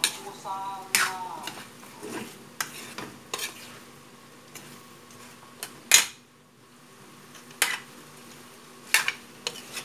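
A spatula stirring chicken adobo in a metal pan, with irregular scrapes and knocks against the pan, the loudest about six seconds in. A low sizzle of the simmering sauce runs underneath.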